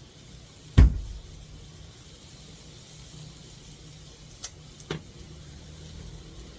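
A single sharp knock about a second in, heavy in the low end, then two faint clicks near the end, over a low steady hum.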